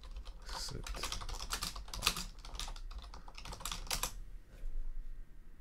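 Computer keyboard typing: a quick, uneven run of keystrokes that stops about four seconds in.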